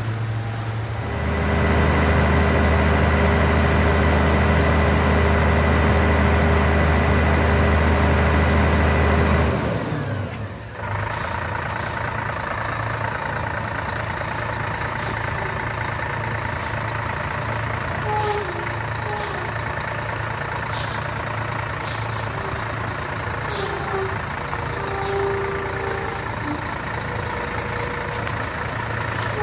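Truck engine running steadily at raised revs, then the revs fall away about ten seconds in and it settles to a steady idle. A few short, sharp clicks or hisses come in the later part.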